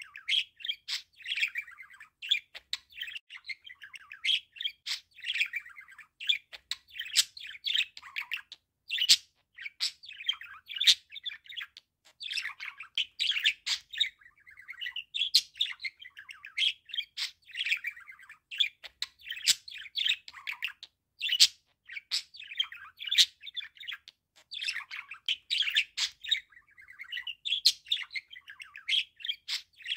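Budgerigar warbling: a rapid, near-continuous chatter of short chirps, squeaks and sharp clicks, with only brief pauses.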